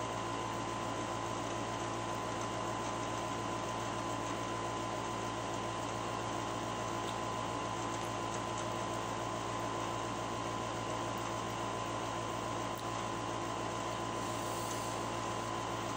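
Steady room hum and hiss from a running appliance such as an air conditioner, with a constant high-pitched whine over a low drone and no distinct events.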